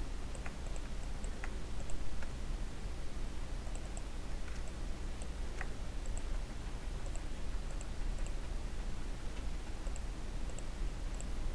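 Faint, scattered clicks of a computer mouse and keyboard, irregular and a few a second, over a low steady hum.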